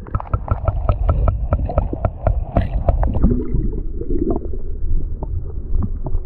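Handling noise on a fishing kayak as a bass is taken off the measuring board and released: a fast, irregular run of knocks and clatters over a strong low rumble.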